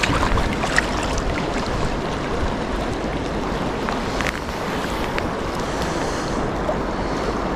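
Steady rush of fast river water close to the microphone, the river running high after a dam release.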